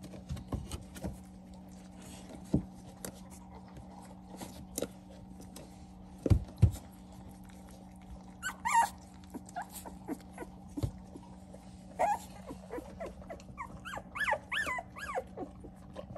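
Two-week-old puppies whimpering and squeaking in a litter: short high calls about halfway through and a run of them near the end. A couple of sharp knocks sound just before the middle, over a steady low hum.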